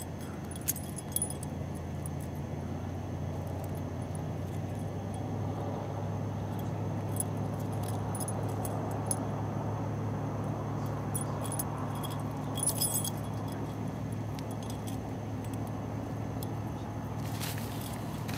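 A cat's collar tinkling in scattered light clinks as the cat walks and sniffs about, over a steady low hum. Near the end, tent fabric rustles as the cat climbs onto it.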